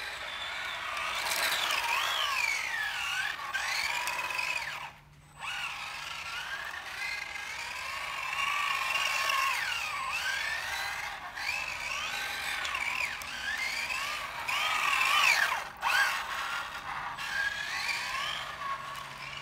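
Whine of a 1/10-scale electric RC car's motor and drivetrain, its pitch rising and falling as the throttle changes. It cuts out briefly about five seconds in.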